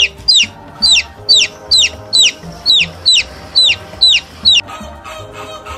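Baby chicks peeping: a run of about eleven loud, high peeps, each falling in pitch, two or three a second, that stop about a second before the end. Background music plays underneath.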